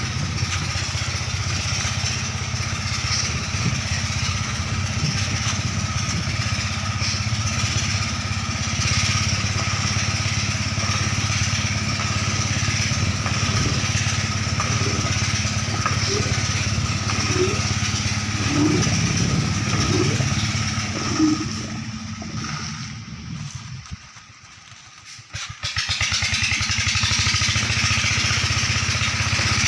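Engine of a river sand suction machine running steadily. About three quarters of the way through, the sound drops away for a few seconds, then comes back at full level.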